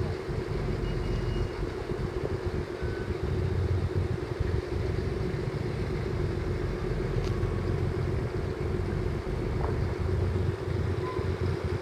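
Steady low engine hum with wind rumbling unevenly on the microphone.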